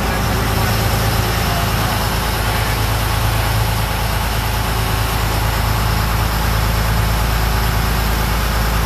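Fishing boat's engines running steadily under way, a deep constant hum under the rush of wind and churning wake.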